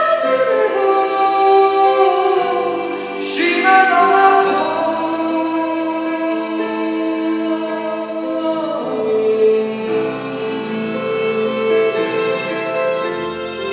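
Live song: a male lead singer holding long sung notes over keyboard accompaniment, with a choir, in a large hall. A strong new phrase comes in about three seconds in.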